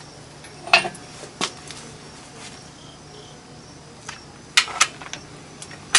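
A few sharp metallic clicks from a torque wrench being pulled on an engine block's crankshaft main-bearing cap bolts, two of them close together near the end.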